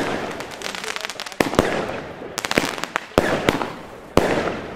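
Compound fireworks battery (BLACKBOXX Level 1) firing in sequence: sharp bangs about once a second, some in quick pairs, each followed by a fading hiss.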